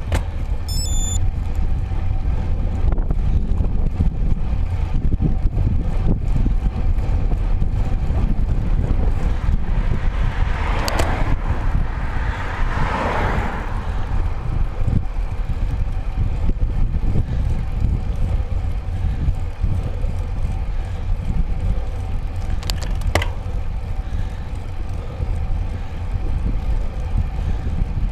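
Wind rumbling steadily on the microphone of a handlebar-mounted camera on a moving road bike. About ten seconds in, a car swells past and fades away, and there are two sharp clicks, one near the middle and one later.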